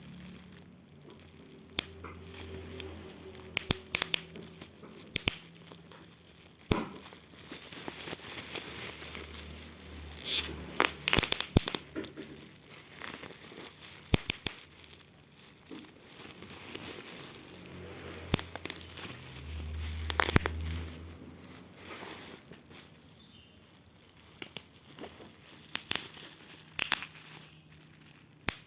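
Packaging being handled and unwrapped: crinkling and tearing, with irregular clicks and knocks throughout.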